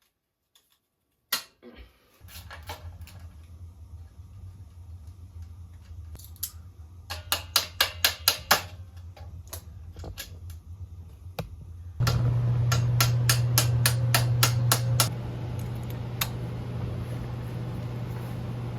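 Metal tools clicking and tapping against the moped's engine mounts and frame, with a quick run of about six sharp taps some eight seconds in. Under it runs a steady low hum that gets louder about twelve seconds in.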